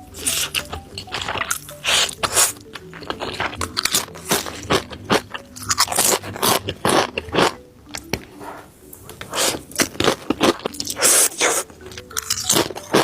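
Close-miked crunching and chewing of Maitos mie goreng-flavour chips: many crisp crunches in quick, irregular succession, easing off briefly about two-thirds of the way through. Background music runs underneath.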